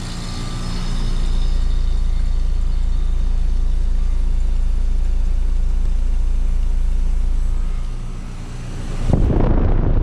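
American Standard Heritage 13 heat pump outdoor unit running in heat mode just out of defrost: a steady low hum that swells over the first second or so. About nine seconds in, a loud rough rush of air buffets the microphone.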